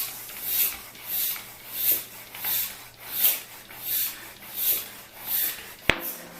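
Bicycle floor pump worked in steady strokes, a puff of air hiss with each stroke about one and a half times a second, inflating a tubeless mountain-bike tire to seat its bead. Near the end a single sharp snap as the bead pops onto the rim.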